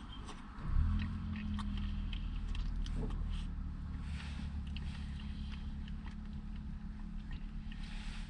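Eating sounds, small clicks and mouth noises of someone eating soft-serve ice cream, over a low steady hum that starts suddenly about a second in and holds.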